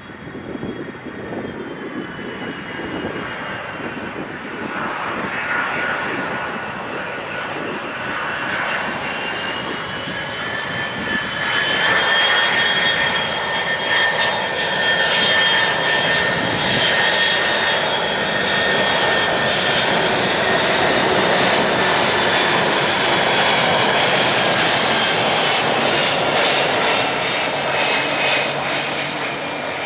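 Boeing 767-200F cargo jet's twin turbofan engines on final approach to land, a rushing noise with a high whine that grows louder as the plane comes in. It is loudest from about twelve seconds in and eases a little near the end as the whine drops in pitch.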